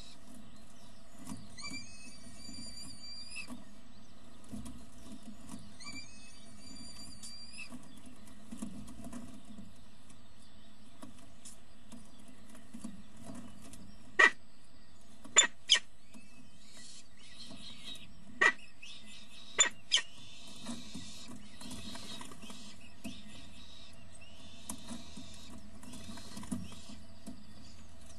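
Falcon nest-box microphone audio over a steady electrical hum. Twice early on comes a high, wavering, drawn-out call, typical of downy chicks begging while the adult feeds them. In the middle come about six sharp knocks, the loudest sounds, in a few close pairs, followed by a faint high hiss.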